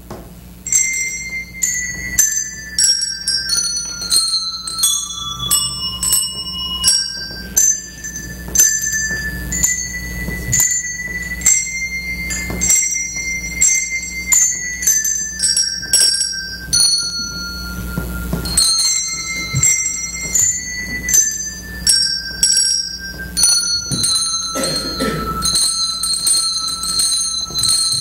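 Set of colour-coded handbells rung one note at a time, playing a simple melody; each note is struck and rings on briefly, and a few notes are held longer near the end.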